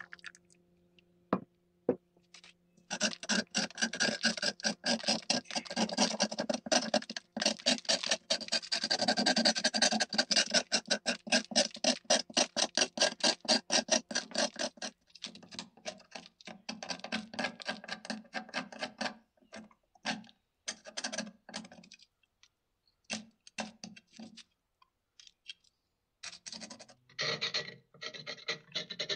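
A thin metal rod scraping flaky rust off an old steel bayonet scabbard in quick repeated strokes. The strokes are densest from about three seconds in, thin out midway, pause briefly, and pick up again near the end.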